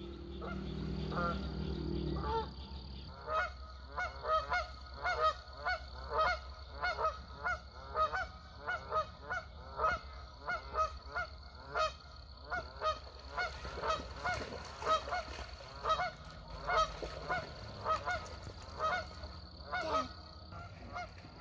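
Geese honking over and over, about two short honks a second, starting about three seconds in. A low steady hum is heard in the first couple of seconds.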